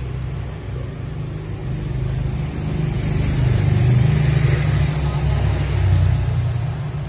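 A motor vehicle's engine running, a steady low hum that grows louder in the middle and eases off near the end.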